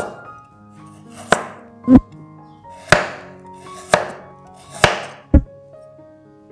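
Chef's knife slicing a peeled carrot into rounds on a wooden cutting board: seven sharp knocks of the blade through the carrot onto the board, roughly one a second, two of them deeper thuds. Soft background music plays underneath.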